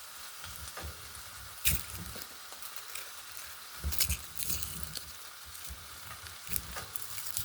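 Pot of ground-turkey chili sizzling on the stove, a steady hiss, with a few sharp clicks and knocks of handling at the pot, the loudest about two seconds in, at four seconds and near the end.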